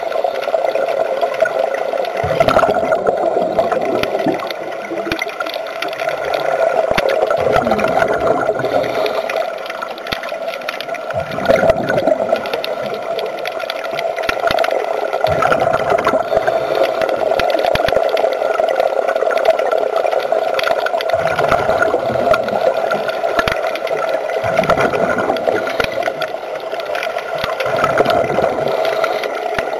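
Underwater sound picked up through a camera housing: a steady hum, with gurgling, bubbling surges every three to four seconds.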